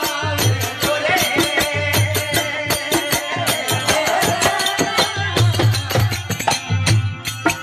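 Live Rajasthani folk bhajan music: harmonium melody over a dholak drum beat, with fast jingling hand percussion keeping a dense rhythm.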